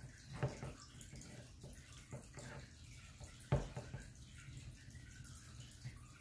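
Small plastic clicks and taps from a fist hand being fitted onto a 1:12 scale action figure, with one sharp knock about three and a half seconds in. A steady low hum with faint trickling water from an aquarium runs beneath.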